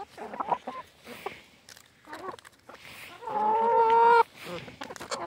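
Hens clucking in short calls, with one long, level call lasting about a second a little past three seconds in that is the loudest sound.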